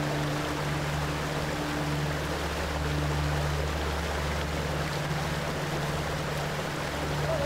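Shallow river rushing over rocks and small cascades: a steady rush of water. Soft held low notes of background music run underneath.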